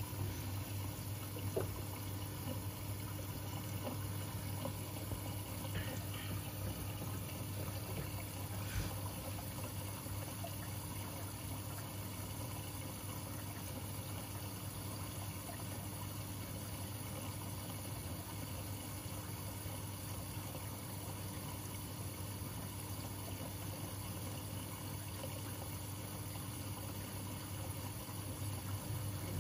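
Washing machines running an easy-care wash: a steady low hum with water running inside.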